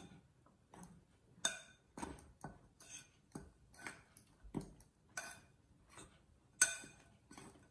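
Metal spoon clinking and scraping against a glass mixing bowl while stirring dry gram flour and spices: a string of light, irregular taps, roughly two a second.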